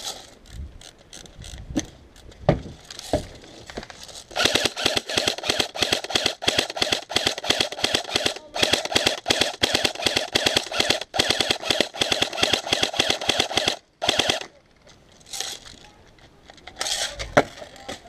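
Airsoft guns firing. First come scattered single shots, then about ten seconds of rapid, near-continuous full-auto fire with two brief pauses, ending suddenly, then a few more single shots near the end.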